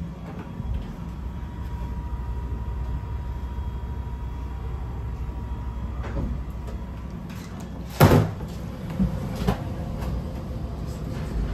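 The toilet door of a Class 810 diesel railbus shutting with one sharp bang about eight seconds in, followed by two lighter knocks. Underneath is the steady low rumble of the railbus running.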